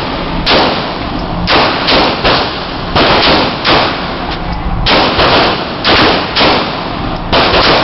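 Gunshots at a shooting range: about a dozen shots fired at an uneven pace, some in quick pairs, each followed by a short echo.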